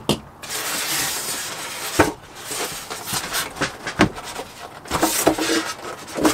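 Polystyrene foam packing block being pulled out of a cardboard box: foam scraping and rustling against the cardboard, with squeaks and several sharp knocks.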